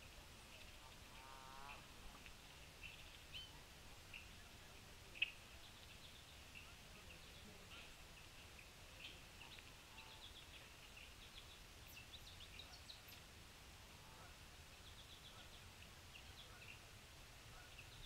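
Faint outdoor ambience with small birds giving scattered short, high chips and call notes, one louder sharp note about five seconds in and a quick run of notes near the end.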